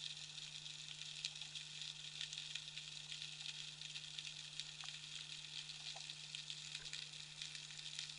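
Underwater ambience: a dense, steady crackle of countless tiny snaps, the sound of snapping shrimp, over a constant low hum.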